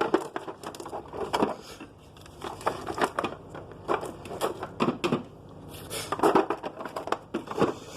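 Eggshell crunching and crackling in irregular bursts of sharp clicks as a raw egg is crushed open by hand.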